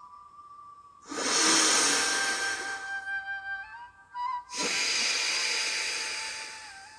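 Two long, hissing breaths drawn through one nostril at a time in surya bhedi pranayama: an in-breath through the right nostril about a second in, then a slow out-breath through the left from about four and a half seconds, fading away. Soft flute music plays underneath.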